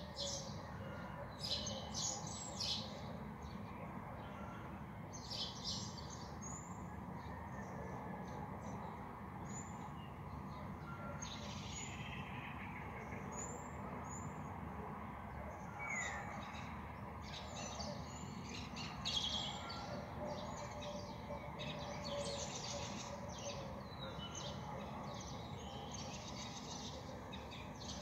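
Small birds chirping at dawn: many short, high calls throughout, with a couple of falling whistles around the middle. Underneath runs a steady low background hum.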